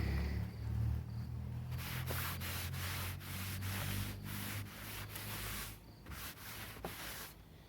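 Rough rubbing strokes, about one to two a second, cleaning dirt out of a seam that is to be fiberglassed, with a low hum under the first part.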